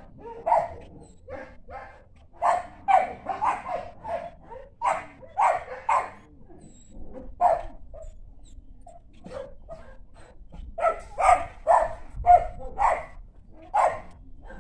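A dog barking repeatedly, in short barks that come in quick runs with brief pauses between them.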